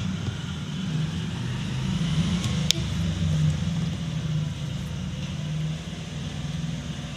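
Background road traffic: a steady low drone of vehicles running, with one sharp click a little under three seconds in.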